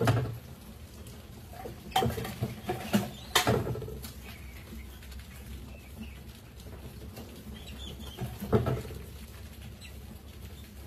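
A crowd of rats scrambling over a glass-walled trap and its wire mesh, claws pattering and scratching, with faint high squeaks. Several sharp knocks stand out: one at the start, three between about two and three and a half seconds in, and one more at about eight and a half seconds.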